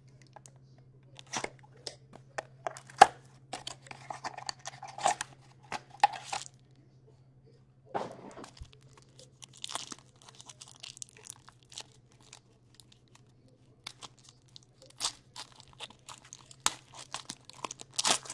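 Upper Deck SP Game Used hockey card box being opened by hand and the plastic-wrapped pack inside torn and crinkled open: irregular rips, crackles and small clicks with short pauses.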